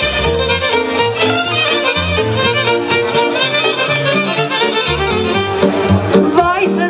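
Romanian folk taraf playing an instrumental passage between sung verses: fiddles carry the melody over low double bass notes in a steady dance beat.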